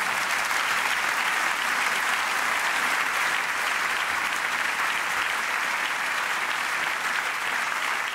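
Theatre audience applauding: steady, sustained clapping from a large crowd.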